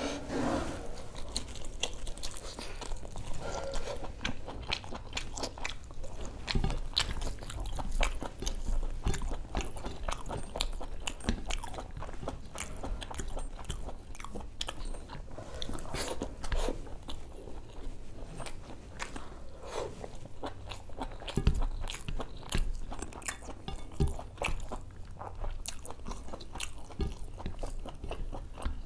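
Close-miked chewing and wet mouth sounds of a person eating mutton boti (intestine) with khichdi, a continuous run of small clicks and smacks.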